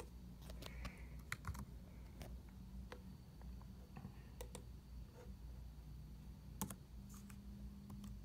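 Faint, irregular clicks of laptop keys being pressed while a line of code is copied and pasted, about a dozen sharp taps spread unevenly across the stretch.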